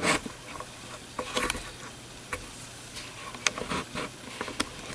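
Light handling noises on a craft table: a knock near the start, then scattered small clicks and taps over faint rustling as the painted train case is shifted into position.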